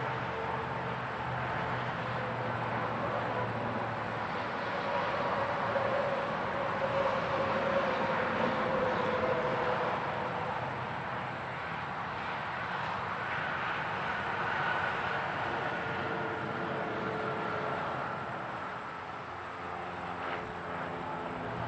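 Continuous interstate highway traffic heard close up: a steady wash of tyre and engine noise from passing vehicles, swelling a little about six to ten seconds in.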